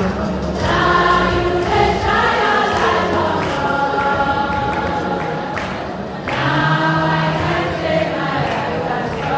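A choir singing a gospel song in long held phrases, with a brief break about six seconds in before the voices come back in.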